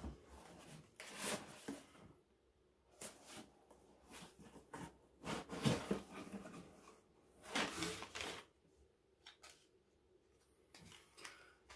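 Cardboard boot box being handled and its lid lifted and folded back, in several separate scraping, rustling bursts with short quiet gaps between them.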